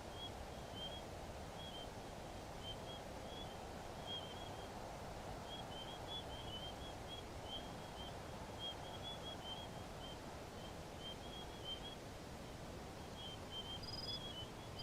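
Faint outdoor ambience: many short, high chirps scattered irregularly over a steady low background hiss.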